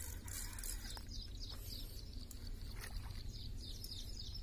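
Small birds chirping faintly, many short quick falling chirps high in pitch, over a low steady rumble.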